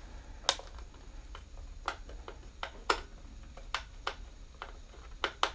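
Irregular light clicks and taps of a plastic RC drone controller being handled while the screw holding its battery-compartment cover is worked out, with a few louder clicks among them.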